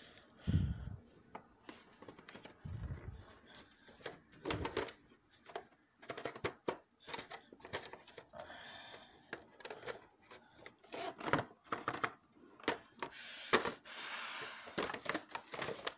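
Handling noise from a cardboard light-bulb box and other boxes being moved and rubbed about, with scattered knocks and clicks. There are two dull thumps in the first three seconds and a longer, louder rustle near the end.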